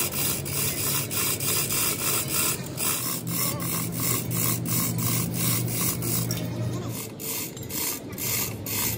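Rapid, rhythmic rasping strokes, about three a second, typical of metal being filed or scraped by hand, over a low steady hum.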